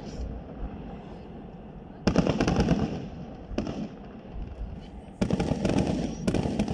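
Aerial fireworks shells bursting overhead in quick clusters of bangs. The volleys come about two seconds in, around five seconds in and again near the end, with a low rumble between them.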